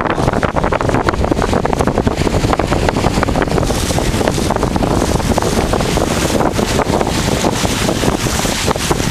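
Strong wind buffeting the microphone aboard a sailboat under way: a loud, steady rushing with rapid flutter.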